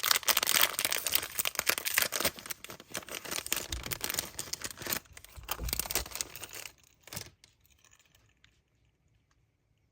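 Plastic packaging crinkling and tearing as a standee is unwrapped, in dense rapid rustles that stop about seven seconds in.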